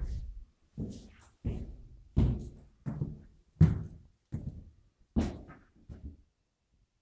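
Footsteps walking across a bare floor: about nine heavy thuds at an even pace, a little more than one a second.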